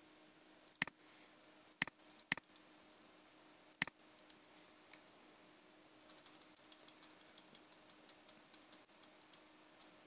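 Four separate computer mouse clicks in the first four seconds, then a quick run of faint keyboard key presses as a file name is typed in.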